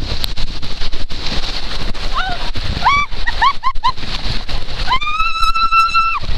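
Water rushing and splashing close up down a waterslide chute, with a rider's short high-pitched whoops in the middle and one long held scream of about a second near the end.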